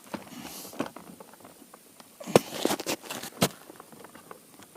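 Gear being handled: a cluster of sharp clicks and knocks about two and a half to three and a half seconds in, over a faint background.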